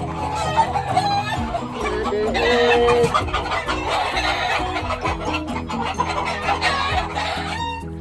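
A flock of chickens clucking, with a rooster crowing, over background music with steady notes; the flock sounds stop shortly before the end while the music plays on.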